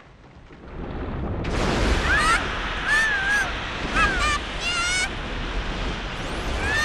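Cartoon sound effects: a rumble swells in about a second in, and short, high, squeaky, honk-like calls that slide up and down repeat over it.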